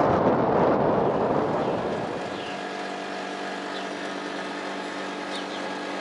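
Wind buffeting the microphone, which gives way about two seconds in to a steady low mechanical hum with a few short bird chirps over it.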